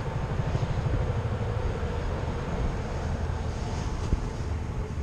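Wind buffeting the camera's microphone, a steady low rumble, with a faint engine hum behind it and one short click about four seconds in.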